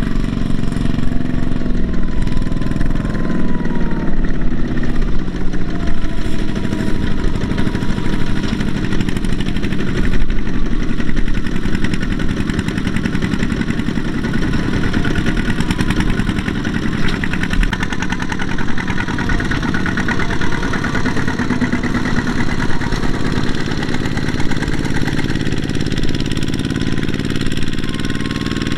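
Single-cylinder diesel engine of a two-wheel walking tractor running steadily under load, hauling a trailer of rice sacks: a fast, even chugging.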